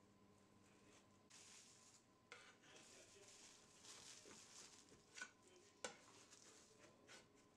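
Faint scraping of a thin spatula blade run along the inside of a metal loaf tin to free the baked loaf, with a few light clicks of metal on metal.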